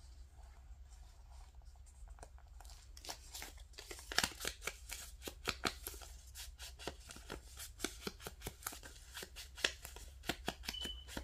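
Ink blending tool dabbed and brushed against the torn edges of a paper tag: a quick run of sharp taps and scuffs, several a second, starting about three seconds in.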